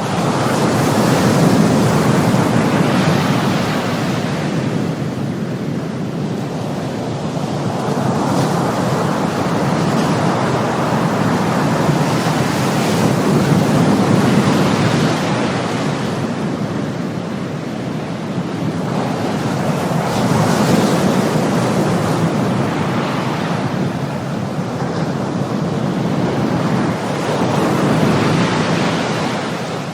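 Ocean surf: a continuous wash of waves that swells and eases every several seconds.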